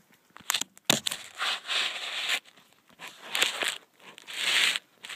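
A cat scratching and tearing at the carpet with its claws: a series of harsh, scratchy bursts, each half a second to a second long, with a sharp knock about a second in.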